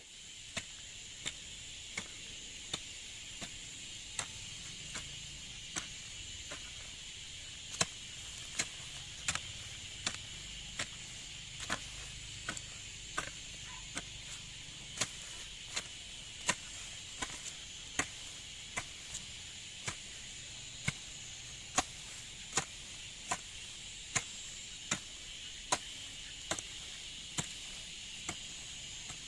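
A hand tool striking in a steady rhythm, about one blow every 0.7 seconds with some blows louder than others, as in chopping or hoeing garden ground. Insects keep up a constant high drone underneath.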